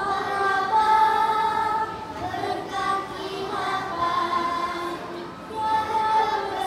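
A group of young children singing a song together in unison, with long held notes.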